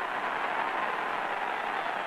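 Steady, even crowd noise from a boxing arena audience, with no single cheer or blow standing out.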